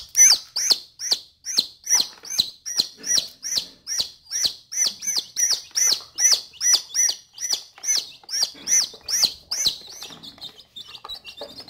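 A newly hatched Albany-line gamefowl chick peeps loudly and insistently, about two to three high, falling peeps a second: the distress calls of a chick held in the hand while the web between its toes is cut for marking. About ten seconds in, the peeping turns fainter and quicker.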